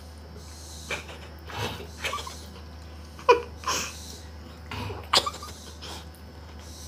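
A girl's short breathy gasps and stifled laughs, about half a dozen separate ones, as cold water is poured over her head.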